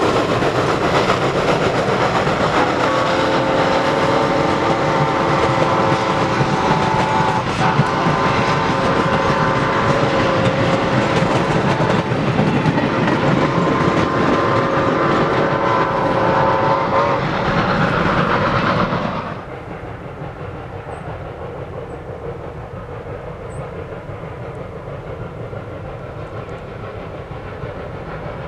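Norfolk & Western #475's freight train rolling by, its boxcar wheels clicking over the rail joints, while the steam locomotive's whistle sounds long chords from about three seconds in to about seventeen seconds, with a couple of short breaks. About nineteen seconds in the train sound drops off sharply to a much quieter steady background.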